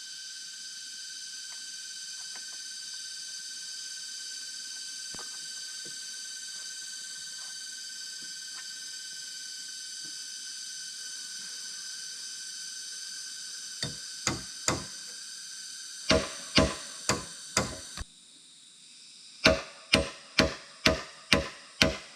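A steady high-pitched hum, then from about two-thirds through, sharp blows of a hand tool on bamboo: a few in small groups, then after a sudden break a steady run of about two blows a second.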